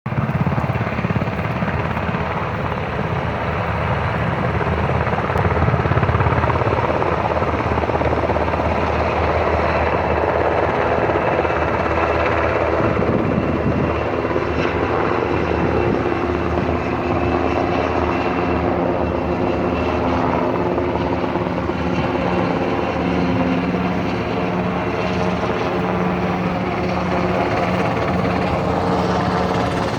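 Helicopters running loudly and taking off, a continuous rotor and engine sound with steady tones that change pitch about halfway through.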